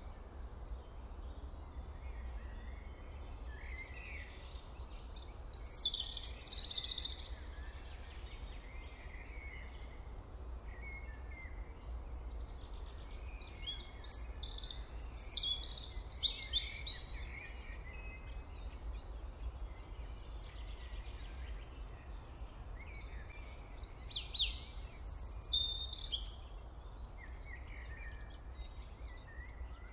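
Birds chirping and singing in three short bouts, a few seconds apart, over a steady low hum.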